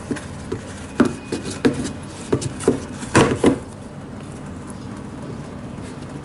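Hands pulling the insole out of an Adidas Yeezy Boost 350 sneaker and laying it down: a run of light taps and rustles, loudest in a close pair about three seconds in.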